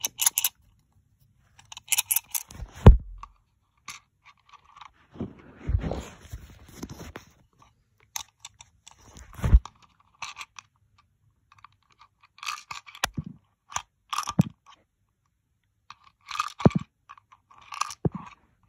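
Handling noise: scattered clicks, knocks and scraping, in clusters a few seconds apart, with the loudest knock about three seconds in.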